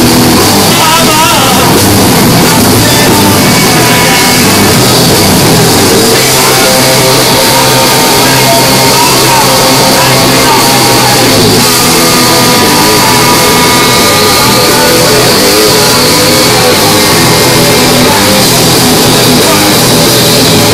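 Live rock band playing loud: electric guitar, drum kit and saxophone together.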